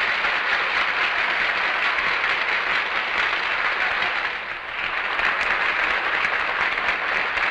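A large audience applauding, a dense, steady wash of clapping that dips briefly about four and a half seconds in.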